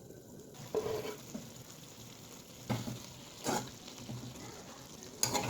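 Brinjal and potato frying in a pan with a low sizzle, stirred with about four short scrapes against the pan.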